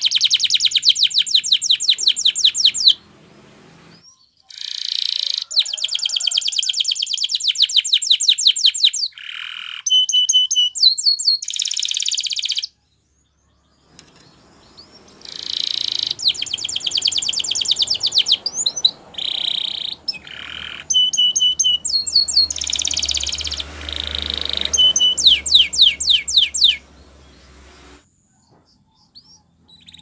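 Canary singing: phrases of fast trills and rolls alternating with short steady whistled notes, broken by short pauses.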